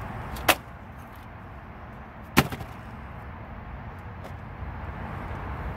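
Two sharp knocks about two seconds apart as engine parts are set down on the bare engine block, over a low steady background hiss.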